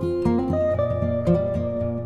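Instrumental background music: plucked-string notes over a steady, regular bass pulse.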